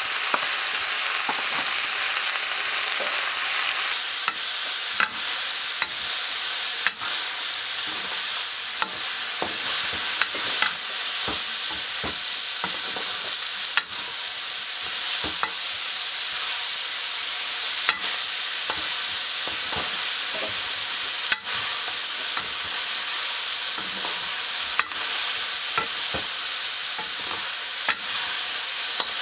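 Vegetables sizzling steadily as they fry in a black iron wok over a wood fire, stirred and scraped with a long-handled metal ladle. Sharp clicks come every few seconds.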